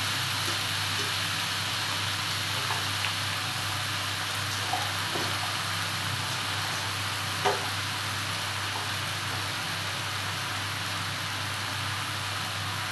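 Steady sizzling from a pot of frying seafood as handfuls of kangkong (water spinach) leaves are dropped in, with a low steady hum beneath. A few light ticks, and one sharper tap about seven and a half seconds in.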